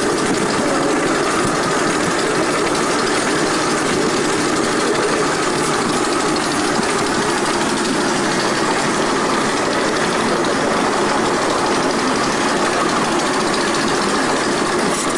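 Ride-on miniature railway train running steadily along its track, a constant mechanical running noise.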